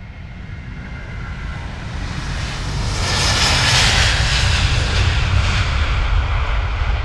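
An aircraft passing overhead: a rumble that swells to its loudest about halfway through, then slowly fades.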